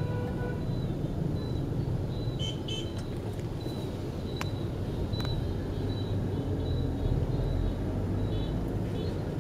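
Steady low rumble of a taxi's engine and road noise, heard from inside the cabin, with short horn beeps from the surrounding motorbike traffic, a cluster of them about two and a half seconds in.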